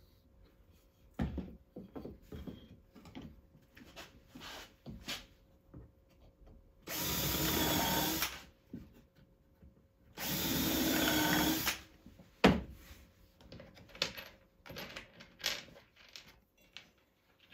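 Cordless drill driving two wood screws into a pine brace block, two steady runs of about a second and a half each, roughly three seconds apart. Short knocks and clatter of wood and tool handling come between and around them.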